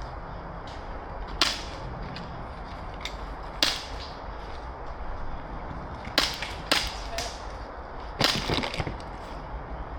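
Airsoft guns firing: sharp single cracks spaced a few seconds apart, then a quick string of shots a little after eight seconds in.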